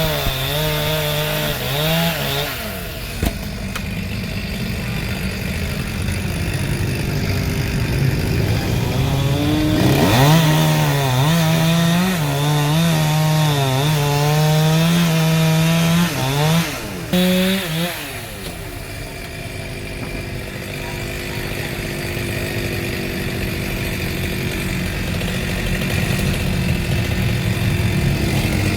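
Chainsaw running and cutting wood, its engine pitch wavering up and down under load. It is at high revs in the first few seconds and again for about seven seconds in the middle, and drops to a lower, quieter run in between and near the end.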